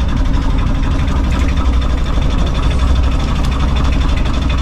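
Outrigger fishing boat's engine running steadily at a constant speed, a loud, even low drone.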